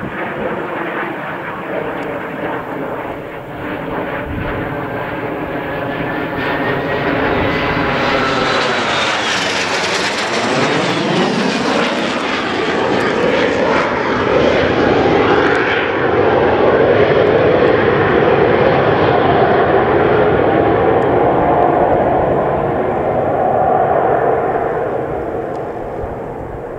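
Jet noise from a pair of BAC Strikemaster jet trainers' Rolls-Royce Viper turbojets, growing louder as they dive and come over. The pitch sweeps down about ten seconds in. It is loudest in the second half and eases off near the end.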